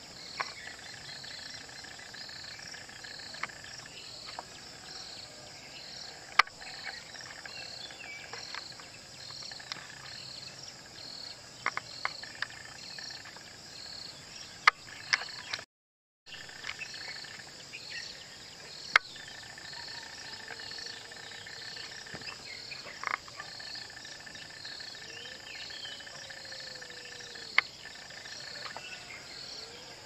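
Steady chorus of insects, a continuous high buzz with one note pulsing about once a second, broken by a few sharp single clicks. The sound cuts out completely for about half a second around the middle.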